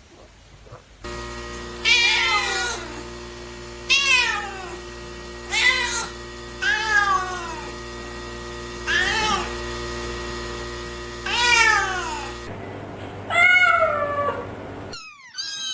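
Kittens meowing: about six drawn-out meows, each falling in pitch, spaced a couple of seconds apart over a steady background hum. Near the end the background changes abruptly twice, with a louder meow and then quicker, higher meows.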